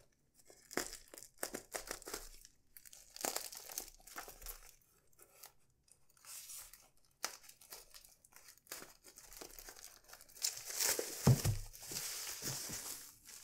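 A tightly sealed parcel being torn and crinkled open by hand in irregular, stop-start bursts, with a longer, louder stretch of tearing near the end.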